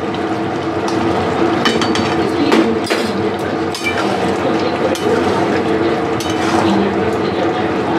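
Metal spatula stirring a simmering potato-and-pea curry in a large metal kadai, with irregular clinks and scrapes against the pan over a steady background hum.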